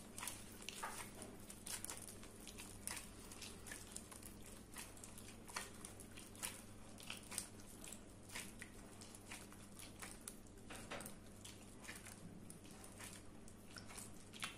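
Plastic-gloved hand mixing a soft, wet yeast starter dough in a bowl: faint, irregular squishing with crinkles from the plastic glove.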